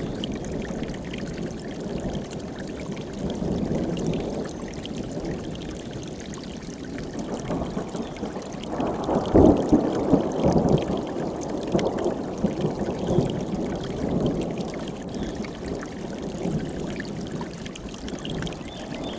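Mountain stream flowing, a steady rushing of water that swells louder for a few seconds about halfway through.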